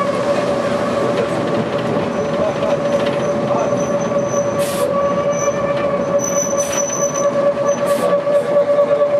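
Vintage Porto tram running along its track, heard from inside its wooden cab: a steady whine from the motor and gears over the rumble of the wheels. A faint high squeal comes and goes, and there are a few sharp clicks in the second half.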